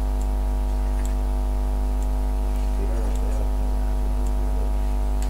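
Steady low hum made of several even tones, with a faint voice murmuring briefly in the middle.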